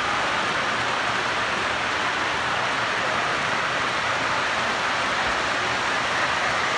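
Model freight train's cars rolling past on the track, a steady even rumble of wheels on rails with no breaks.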